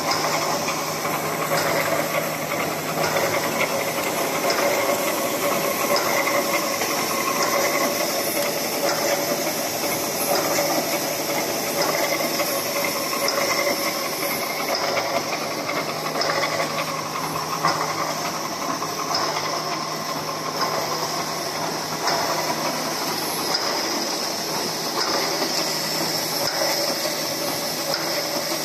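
Automatic roll wire mesh welding machine running: a steady hissing mechanical noise over a low hum, with occasional faint knocks.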